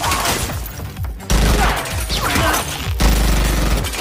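Bursts of automatic gunfire in a film action-scene sound mix, loud and dense, with a fresh burst starting suddenly about a second in and another about three seconds in.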